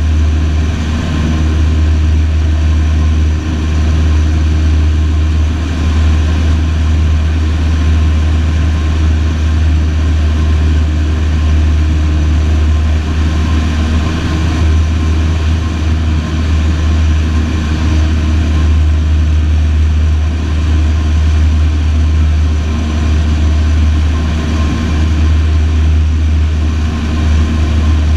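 Light single-engine aeroplane's piston engine and propeller droning steadily in flight, heard from inside the cockpit, with a strong low hum.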